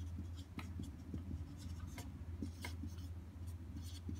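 Marker pen writing on a whiteboard: a run of short, scratchy strokes, over a low steady hum.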